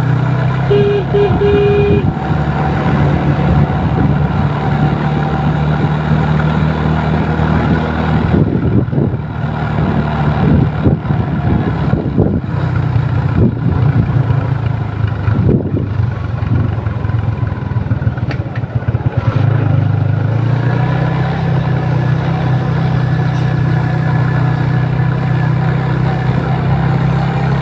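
Motor vehicle engine running steadily with traffic noise. Its note steps up slightly about twenty seconds in.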